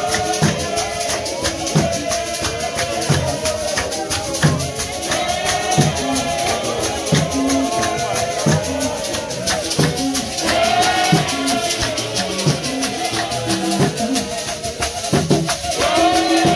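A crowd of robed worshippers singing together in chorus over a fast, steady rattle of shakers and regular low beats.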